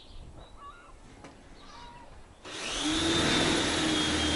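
Electric motor starts abruptly about two and a half seconds in and runs at a steady pitch with a high whine over a low hum, louder than the speech around it. Faint bird chirps come before it.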